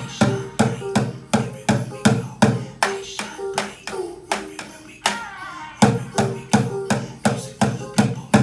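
Drumsticks striking an upturned plastic bucket in a steady beat, about two to three hits a second, with a short break a little past the middle. A faint held melody sounds under the hits.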